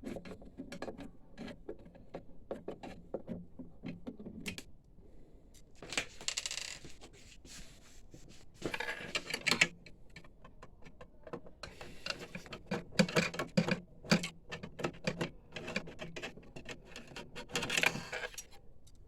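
Screwdriver work on a printer chassis: screws being turned out, with many small clicks and several rasping stretches of a second or so, and light clinks of metal parts being handled.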